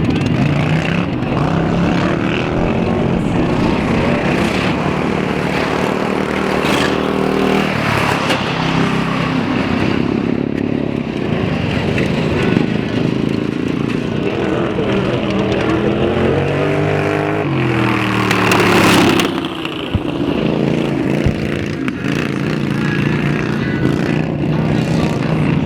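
Racing lawn mowers' small engines running hard, their pitch rising and falling as they accelerate and back off through the corners. One mower passes close about three quarters of the way through, getting louder and then falling away.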